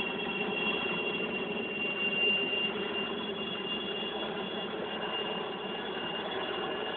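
Helicopter running close by: a steady noisy rush with a thin, high, unchanging whine on top.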